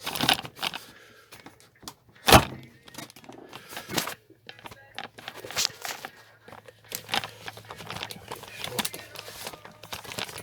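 Handling noises: a run of knocks, clicks and rubbing, with one heavy thump about two seconds in.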